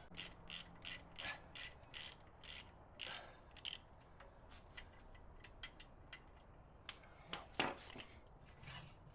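Hand socket ratchet clicking in quick strokes, about two or three clicks a second, as bolts are backed out of the Jeep's front axle. The clicks turn sparser after a few seconds, with a couple of louder clicks near the end.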